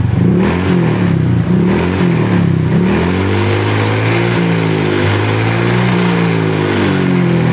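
Honda Vario scooter's single-cylinder engine revving through an aftermarket SKR racing muffler: quick throttle blips at first, then slower, longer swells from about three seconds in. A 'kretek kretek' rattle and vibration come from the exhaust mounting, whose bolts turn out to be loose.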